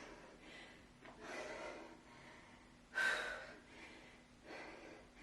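A woman breathing hard from the effort of kettlebell rows and deadlifts, with a loud, sharp breath about every one to one and a half seconds. The strongest breath comes about three seconds in.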